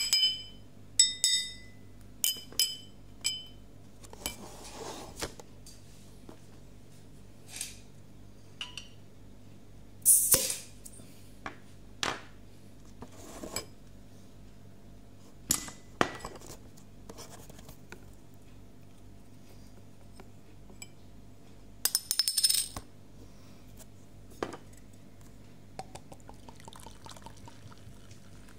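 A metal screwdriver clinks and knocks against a glass beer bottle and a tabletop as the crown cap of a Bintang Pilsener bottle is pried off. It makes scattered sharp clicks, some ringing like glass at the start, and a quick rattle of clicks about three quarters of the way through. Near the end, beer pours and fizzes into a glass.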